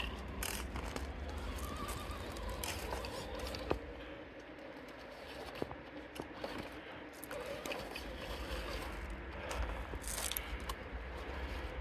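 RC 6x6 rock crawler driving slowly over loose stones and rock, its Hobbywing Fusion 1800kv brushless motor and drivetrain giving a faint wavering whine, with scattered clicks and scrapes of tyres and gravel over a steady low rumble.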